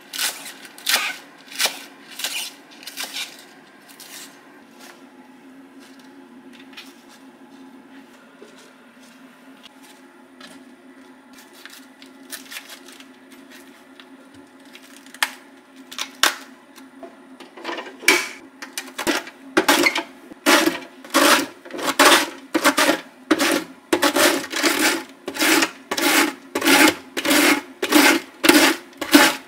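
Red cabbage being shredded on a plastic mandoline slicer: a steady run of scraping strokes, about one and a half a second, from about two-thirds of the way in. Near the start, a few knife chops on a plastic cutting board.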